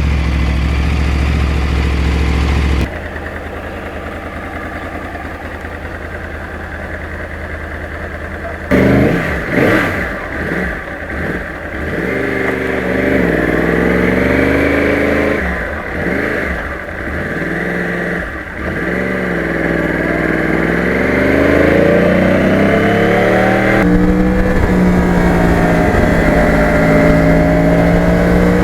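A 2009 Yamaha R1's crossplane-crank inline-four engine running steadily, then revved up and down in a series of throttle blips, then pulling with a steadily climbing pitch.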